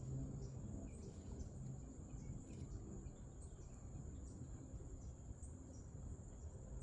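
Faint, steady high-pitched buzzing of insects, with a few small chirps above it.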